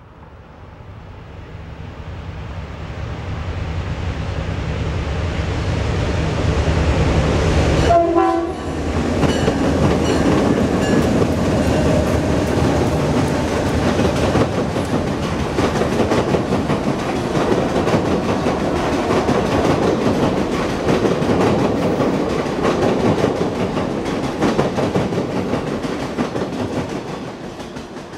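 A train led by three diesel locomotives at speed: their engines' low rumble grows as they approach, then about eight seconds in they pass overhead on a bridge with a short pitched tone like a brief horn note. The passenger cars follow, their wheels clattering in rapid clicks over the bridge, fading near the end.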